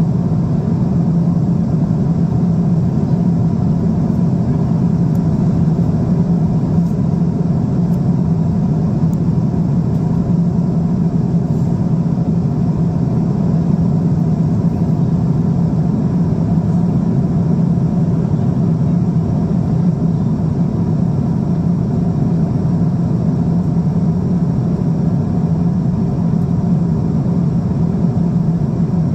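Steady engine and airflow noise inside the cabin of a Boeing 777-200 in cruise, an unchanging low rumble with no rises or breaks.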